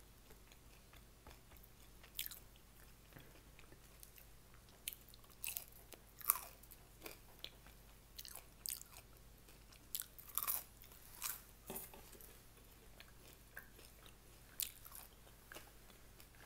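A person chewing and eating, close to the microphone: irregular soft crunches and wet mouth smacks, a few of them louder, over a faint steady low hum.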